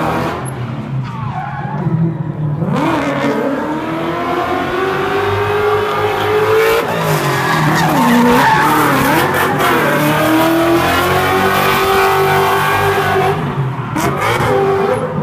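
Ford Mustang drift car's engine revving up and down as it slides sideways, its rear tyres screeching and spinning from about three seconds in.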